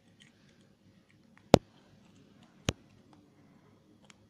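Two sharp plastic clicks about a second apart as the cap of a combined ballpoint pen and pencil is pushed on, with faint handling ticks between.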